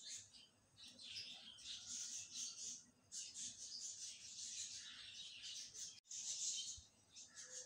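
Minced meat and sliced onions sizzling and crackling in oil in a non-stick wok, a high hiss that swells and eases in patches with short lulls.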